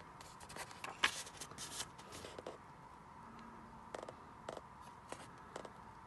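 Pages of a paperback manga volume being turned by hand: a short burst of paper rustling and flicks in the first two seconds or so, loudest about a second in, followed by a few light taps of fingers on the paper.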